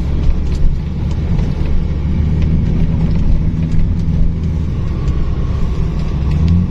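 Strong gusty wind buffeting the microphone: a loud low rumble that rises and falls unevenly.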